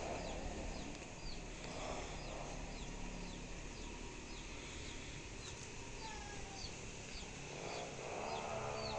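Village chickens: a steady run of short high peeps, about two a second, with lower clucking near the start and again near the end.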